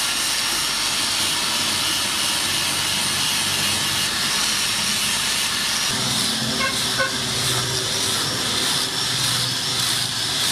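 Electric angle grinder with a sanding pad running at a steady high whine, sanding the steel hammer head and throwing sparks. About six seconds in the sound shifts as the pad moves onto the wooden handle.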